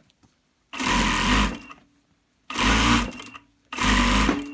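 Industrial sewing machine stitching in three short bursts of just under a second each, stopping briefly between them, as a seam is sewn a stretch at a time.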